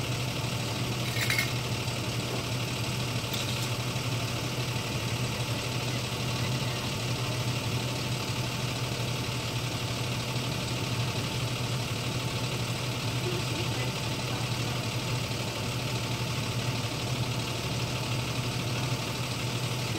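A vehicle engine idling steadily, with one short click about a second in.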